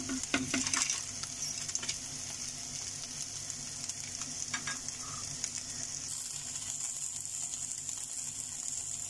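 Steady sizzling hiss and bubbling of stovetop cooking. A few light knocks come in the first couple of seconds as dried fettuccine nests go into a pan of boiling water.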